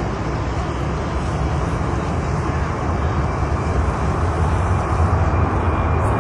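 Airplane taking off: steady engine noise with a deep rumble, slowly growing louder.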